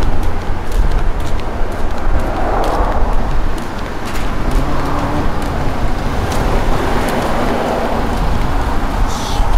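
Road traffic going by: a rushing noise of passing cars that swells and fades twice over a steady low rumble.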